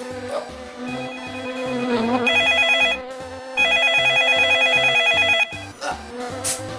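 Old rotary-dial desk telephone's electric bell ringing in two bursts, a short one about two seconds in and a longer one of about two seconds after a brief pause, with a fast trilling rattle. Chiptune music with a stepping bass line plays underneath.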